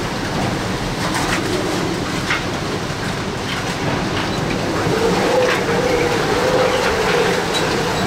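Extreme hurricane-force wind blowing hard in a loud, steady roar, with a wavering howl that grows stronger about five seconds in. Scattered knocks and rattles sound through it.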